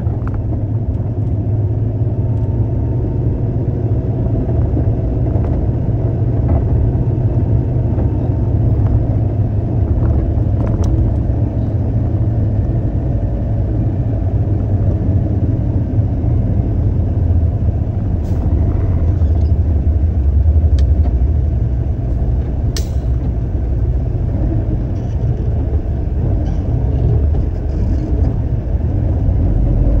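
Concrete mixer truck's diesel engine running steadily, a deep low rumble, with a few faint clicks and one sharper tick a little after the middle.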